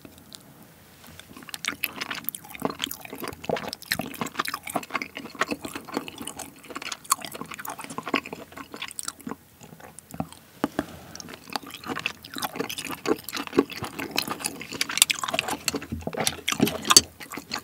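Close-miked wet chewing of seasoned cockles in chili sauce with rice: dense, irregular wet mouth clicks, with a short lull about ten seconds in.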